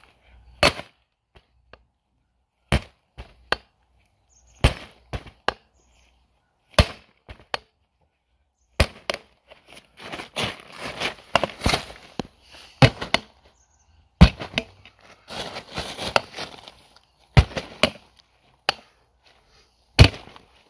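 A tire hammer's wedge is driven into a motorcycle tire's sidewall beside the rim, a dozen or so sharp strikes at uneven intervals, to break the tire bead off the rim. There is rustling noise between some strikes.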